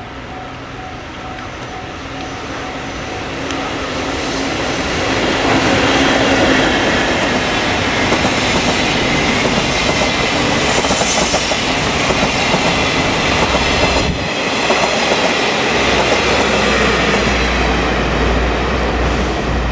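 JNR Class EF65 electric locomotive hauling a train of passenger coaches past. It gets steadily louder for the first few seconds as it approaches, then the wheels run loud and continuous on the rails as the coaches go by, with a heavy low rumble near the end.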